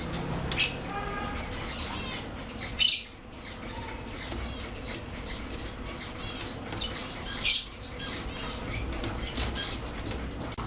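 African grey parrots making soft high chirps and clicks, with three short loud squawks: near the start, about three seconds in, and about seven and a half seconds in.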